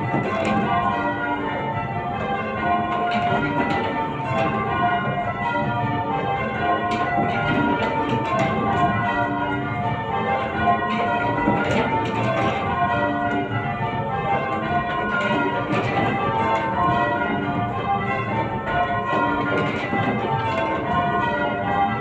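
Change ringing on a ring of eight church bells: a steady, continuous sequence of bell strikes, one bell after another in rounds and changes.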